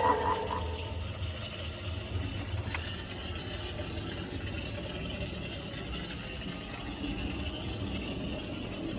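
Steady low mechanical rumble, with a faint single click about three seconds in.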